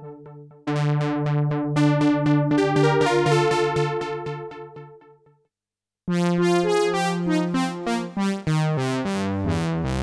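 Synapse Audio The Legend software synthesizer playing a keyboard phrase: a held bass note under a quick run of bright, sharply struck chord notes that fade out about five seconds in. After a short silence a second patch starts, with bright stabs over a bass line stepping down.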